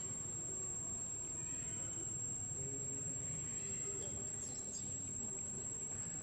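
Insects shrilling outdoors in one steady, unbroken high-pitched tone, with faint distant voices underneath.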